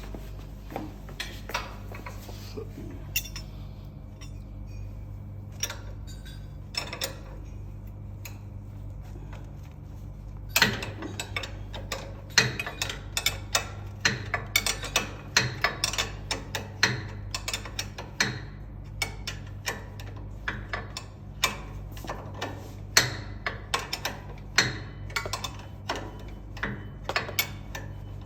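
Irregular metallic clicks and knocks of hand tools working on a noodle machine's metal parts, sparse at first, then coming thick and fast, several a second, from about ten seconds in, over a steady low hum.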